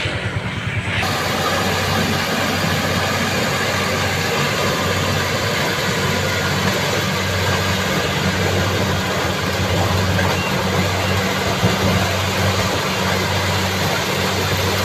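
Engine of a compact crawler corn combine harvester running steadily as it cuts and threshes maize: a low steady hum under a broad rush of machine noise.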